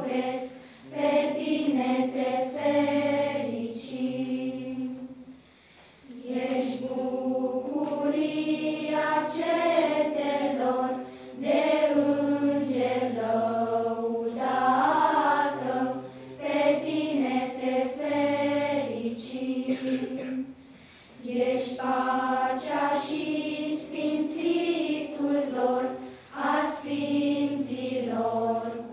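Children's choir singing in phrases, with short breaks between them.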